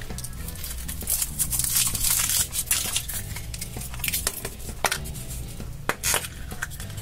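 A Kinder Surprise egg being unwrapped and opened by hand: crinkling foil and a quick run of sharp clicks and snaps, ending with the orange plastic toy capsule being prised open.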